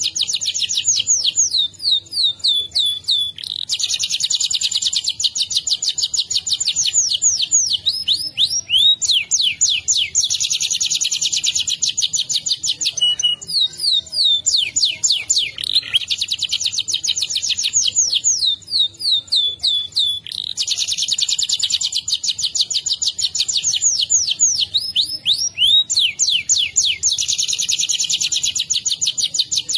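Domestic canary singing a long, unbroken rolling song. Runs of very fast trills lasting several seconds alternate with runs of quick sweeping notes, with no pause between them.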